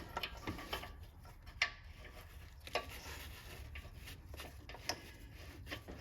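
Scattered light clicks and rubbing as a new oxygen sensor is screwed into the exhaust, the sharpest click about one and a half seconds in, over a faint steady low hum.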